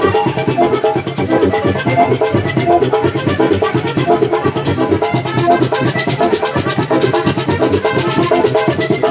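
Live vallenato puya played instrumentally at a fast tempo: accordion runs over the rapid beat of the caja drum and guacharaca scraper.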